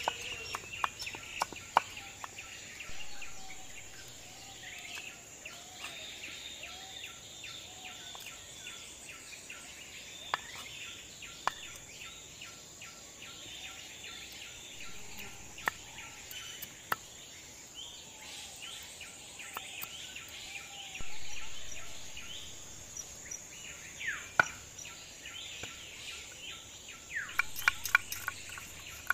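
Scattered sharp knocks of a steel knife on a wooden cutting board as small fish are scaled and their heads chopped off, with a quick run of knocks near the end. Birds chirp, and a steady high insect drone runs underneath.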